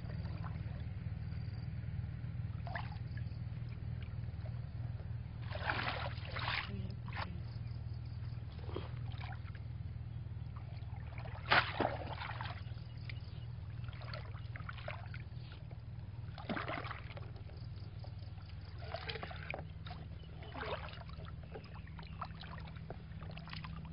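Muddy water splashing and sloshing in short bursts as a bamboo plunge basket is pushed into a shallow ditch and hands grope about inside it, the sharpest splash about twelve seconds in. A steady low rumble runs underneath.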